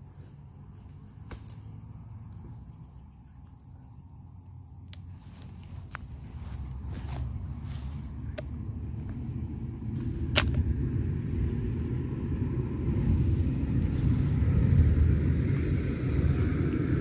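Insects chirring steadily and high, with a few sharp clicks of a hand sickle striking cassava tubers. A low rumble grows louder through the second half and ends up the loudest sound.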